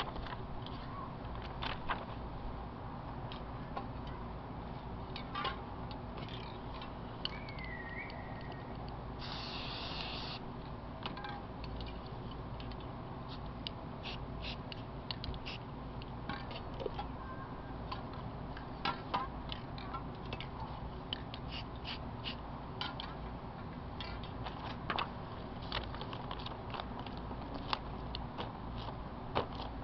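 An aerosol spray paint can hissing in one burst of about a second, a third of the way in, over a low steady hum and scattered light clicks and taps.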